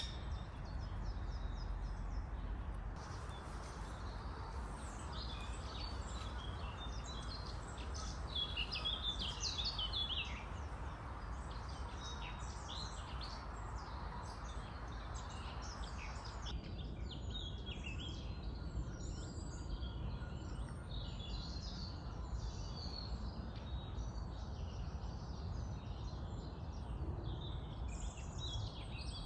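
Several songbirds singing and chirping in spring woodland, many short overlapping calls and trills, over a steady low rumble. The background changes abruptly twice, about 3 and 16 seconds in.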